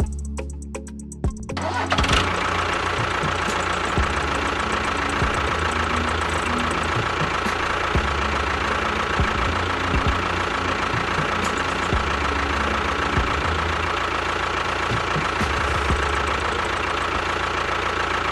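A small motor starts about two seconds in and runs steadily with a constant high tone.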